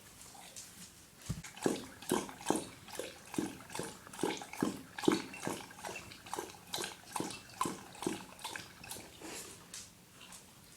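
A dog lapping water from a bowl: quick, wet laps at a steady rhythm of about two to three a second, starting about a second in and growing fainter near the end.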